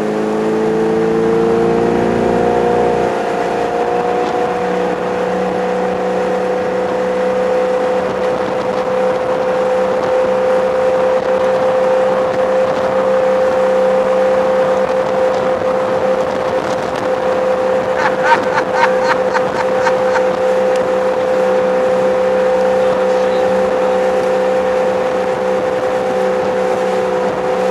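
Ski boat's engine heard from on board, rising in pitch over the first couple of seconds as the boat speeds up, then running steadily at speed. A short run of sharp clicks comes about two-thirds of the way through.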